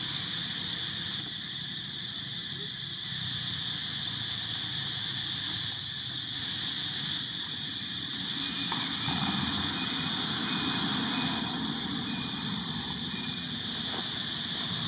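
Steady high-pitched insect drone over a low, even background rumble, with a faint run of short peeps about two-thirds of the way in.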